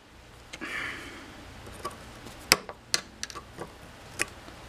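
A flathead screwdriver and needle-nose pliers scraping and clicking against a U-joint's bearing-cap retaining clip in a steel driveshaft yoke as it is pried out. A short scrape just under a second in, then scattered sharp metal clicks, the loudest about halfway through and near the end.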